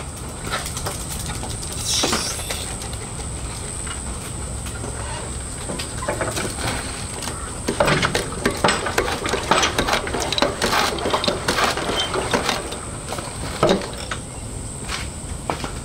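Clunks and clinks from a KTM 890 Adventure R Rally's WP front suspension being bounced up and down to seat a freshly cleaned fork seal, most of them bunched in the middle stretch.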